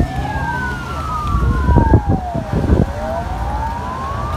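A siren wailing, its pitch sweeping slowly up and down over a couple of seconds at a time, over a steady low rumble, with a few thumps near the middle.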